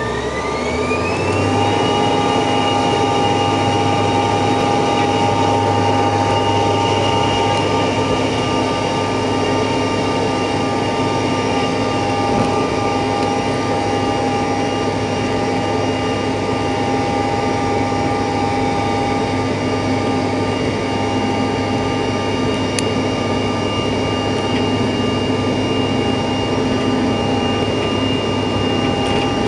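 CRJ-700's twin General Electric CF34 turbofan engines spooling up to take-off thrust: a whine rises in pitch over the first second or two, then holds steady with a loud low drone and noise as the jet makes its take-off run.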